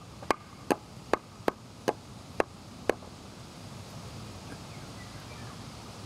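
A series of seven sharp, short knocks, a little over two a second, that stop about three seconds in, leaving only a steady outdoor background.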